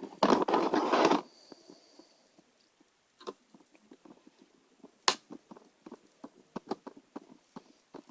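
A small screwdriver on a plastic laptop case as the last screw goes in: a brief scraping rattle about a second in, then a string of small, irregular clicks and taps.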